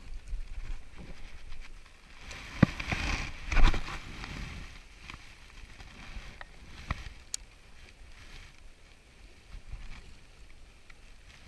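Choppy water slapping against a small boat's hull, loudest about two to four and a half seconds in, with a few sharp knocks.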